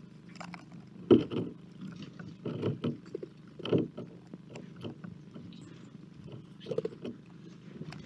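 A squirrel clambering about on wooden bird feeders: irregular knocks and scrapes on wood, the loudest about a second in and just before four seconds.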